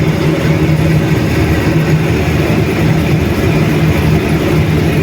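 A 47-year-old diesel-electric locomotive's engine running steadily, heard from inside the cab as the train moves along the rails, with a constant low hum.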